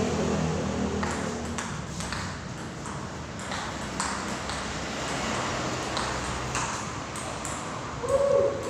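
Table tennis rally: the ball clicking sharply off the paddles and the table, a hit roughly every half second to a second. A short pitched sound near the end is the loudest moment.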